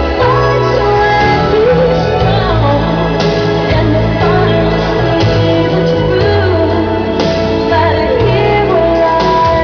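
Loud music with a singing voice over a bass line that moves from note to note.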